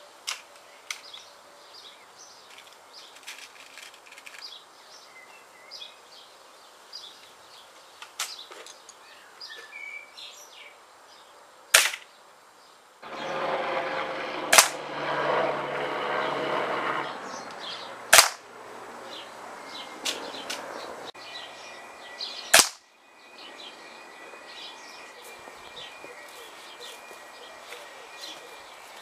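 Four shots from a .22 full-power spring air rifle (Webley Stingray Deluxe), each a sharp crack. They come a few seconds apart, starting about twelve seconds in.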